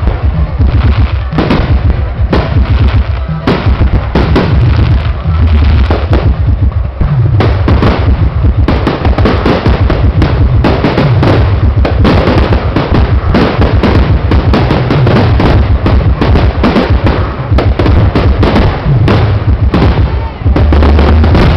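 A dense barrage of aerial firework shells bursting in rapid succession, many sharp bangs and crackles a second over a continuous low rumble.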